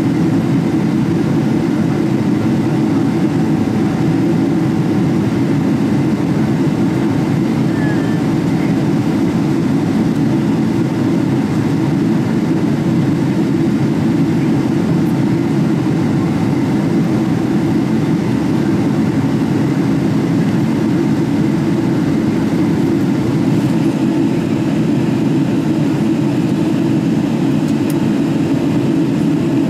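Steady cabin noise inside a Boeing 777-300ER in flight: an even, low rumble of its GE90 engines and the airflow past the fuselage, heard from a window seat by the wing.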